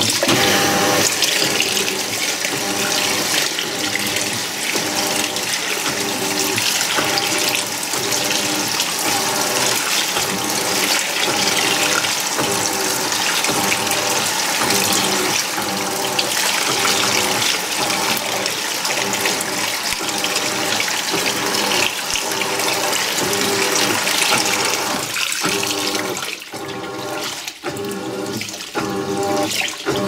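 Haier top-load washing machine agitating a tub of towels: water churning and sloshing steadily, with a motor hum that starts and stops in a regular rhythm as the wash action reverses, choppier near the end.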